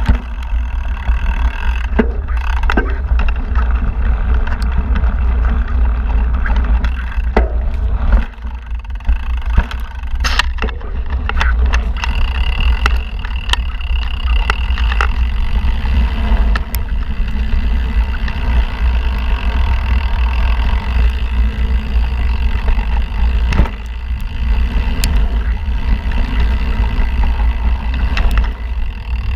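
Mountain bike riding fast down a dirt singletrack, heard from a camera mounted on the bike or rider: heavy wind rumble on the microphone over the rolling of knobby tyres on dirt. Sharp knocks and rattles from the bike come and go as it goes over bumps.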